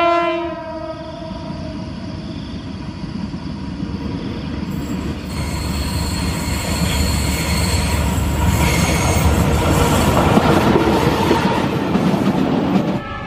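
The horn of a CC201 diesel-electric locomotive ends about half a second in. The locomotive and its tank wagons then approach and pass close by, the engine rumbling and the wheels growing louder, with a thin high wheel squeal on the curve in the middle.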